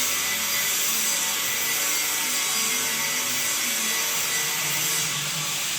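Power saw cutting tile: a steady, high-pitched grinding hiss that runs on without a break.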